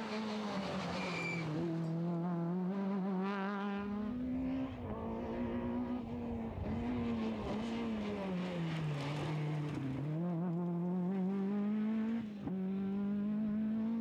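Talbot Samba rally car's four-cylinder engine at high revs on a rally stage, its pitch climbing and falling as the driver accelerates, lifts and changes gear, with a sudden break about twelve seconds in.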